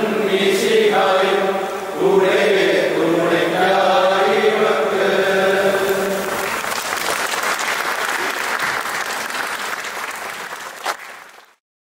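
A mixed group of men and women singing together in unison. The song ends about six and a half seconds in, and applause follows, fading away and cutting off just before the end.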